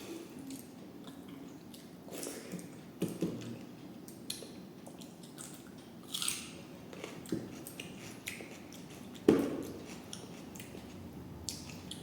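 Close-up eating sounds: wet squishing and chewing of rice with dal, broken by scattered short clicks and crunches, the loudest a sharp knock about nine seconds in.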